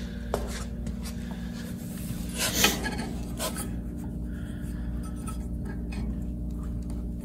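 Steady hum of a shop heater running, with brief clicks and rubs of metal parts being handled as a shock absorber and its bracket are held against the frame; the loudest rattle comes about two and a half seconds in.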